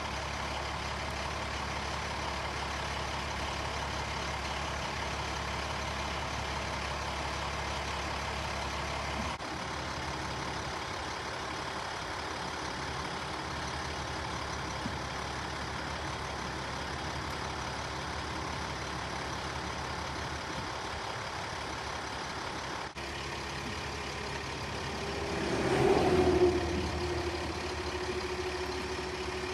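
Fire engine's diesel engine idling steadily. Near the end another vehicle passes close by, swelling louder and fading.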